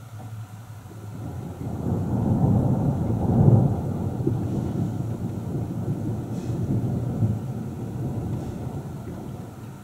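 Rolling thunder: a low rumble that swells over the first couple of seconds, peaks about three and a half seconds in, then slowly dies away.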